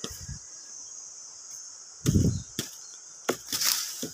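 Dual-blade tomahawk axe chopping into a small tree trunk: several sharp blows of steel into wood, the heaviest about halfway through, with more in quick succession near the end.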